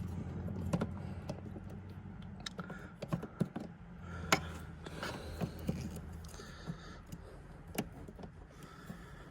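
Scattered small plastic clicks and taps of automotive relays being worked in and out of a Jeep's relay box, over a steady low hum.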